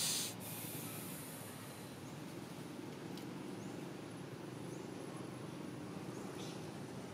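Steady low outdoor background noise, with a short hissing rustle right at the start and a few faint, short high chirps later on.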